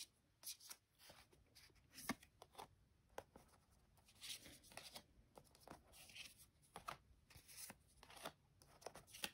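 Faint handling of glossy photocards: cards slid off a hand-held stack and laid down onto other cards on a table, giving scattered soft clicks and brief paper swishes.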